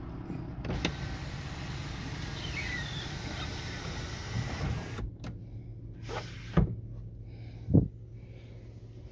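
Electric sliding sunroof motor of a 2019 Honda Civic running with a steady whirr that stops suddenly about five seconds in, over the low hum of the idling engine. Two sharp knocks follow near the end.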